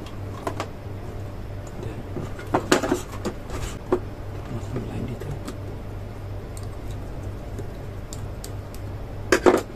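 Wires and small plastic electrical parts being handled and connected by hand: light clicks, knocks and rustles, a cluster about three seconds in and the loudest pair near the end, over a steady low hum.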